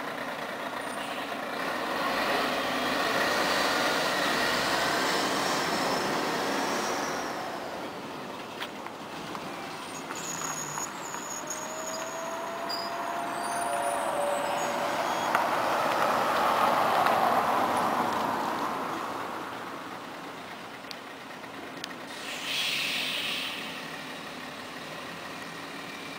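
Scania CN113ALB articulated city bus driving off and fading into the distance, amid street traffic noise that swells twice as vehicles pass. A short hiss of air comes near the end.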